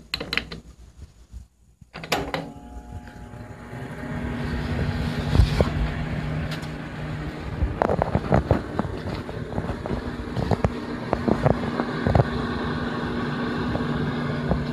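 Sharp Hi-Cooker R-527 microwave oven switched on with a click about two seconds in, then running with a steady electrical hum, with scattered clicks and rattles over it.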